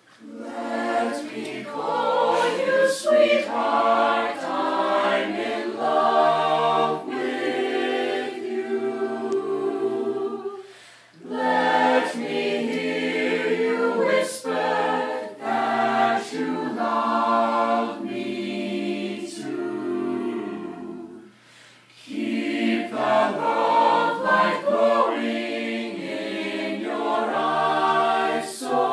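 A small mixed choir of women's and men's voices singing a cappella, in three phrases with short breaks about 11 and 21 seconds in.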